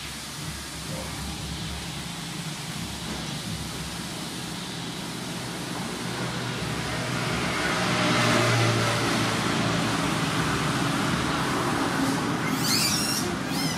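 A motor vehicle engine running, with a low hum that grows louder past the middle and then holds. A brief high chirping comes in near the end.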